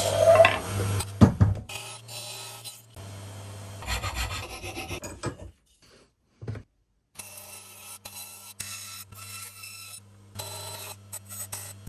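Abrasive rubbing on wood in repeated stretches with short pauses, as when a workpiece is sanded or filed by hand, over a steady low hum. A few sharp knocks sound in the first two seconds.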